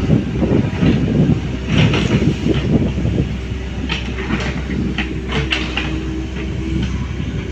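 Excavator diesel engine running with a heavy low rumble, and a scatter of sharp metal clanks from about two seconds in, most of them in a quick cluster past the middle.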